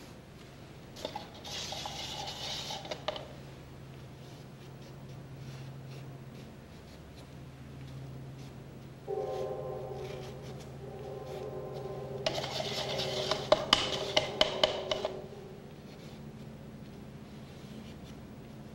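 A paintbrush scratching and rubbing across canvas in two short bursts, the second with several sharp clicks. Partway through, a steady tone of several pitches sounds for about six seconds, over a low hum.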